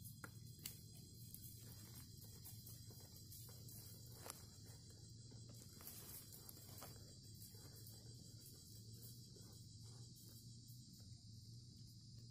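Faint, steady chorus of insects calling in the forest, with a few soft clicks of dry twigs being handled.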